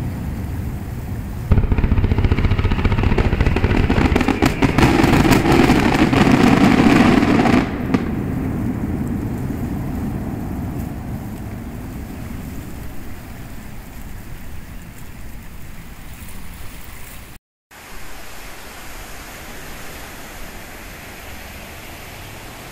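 Fireworks display: a big gold crackling shell goes off, with a dense loud crackle of many sharp pops from about a second and a half in to nearly eight seconds, then fading to a steady hiss. After a short dropout near the end comes a steady rush of surf.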